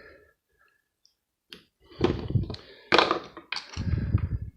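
Plastic casing being prised and peeled off a brass strip from a plug adaptor: quiet at first, then a run of knocks, cracks and scraping over the last two and a half seconds as the plastic gives.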